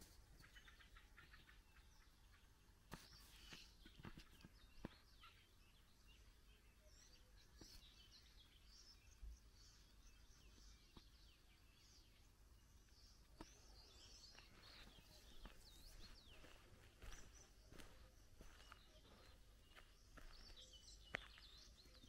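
Faint birdsong: several small birds chirping and singing on and off, busier in the second half, over a quiet background with a few soft clicks.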